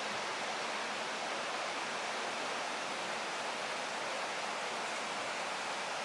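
Mountain river water rushing steadily over stony rapids, with a waterfall close by: an even, unbroken hiss.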